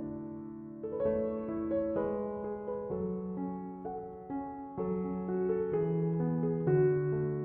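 Background music: soft electric-piano playing with chords that change about every half second to a second.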